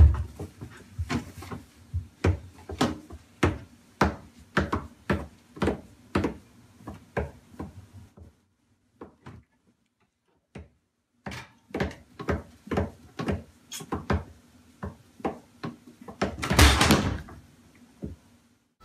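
Repeated knocks and clunks of pots, pan lids and wooden cabinet panels as a toddler rummages inside a kitchen cupboard, about two a second. They stop for a couple of seconds in the middle, and there is a longer, louder clatter near the end.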